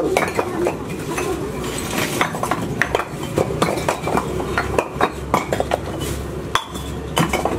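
Broken bricks and rubble clinking and knocking against each other as the debris is shifted, many sharp irregular knocks.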